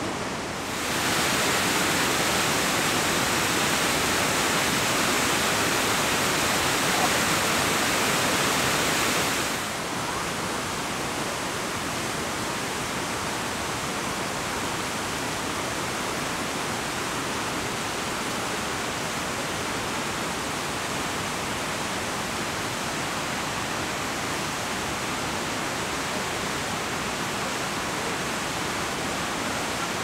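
Steady rushing of the Rhine Falls' water. It is louder and hissier for the first ten seconds or so, then a little quieter and duller and even for the rest.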